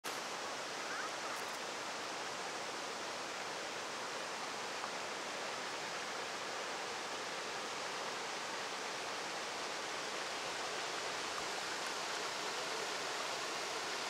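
Steady rush of river water pouring over a low, wide waterfall ledge.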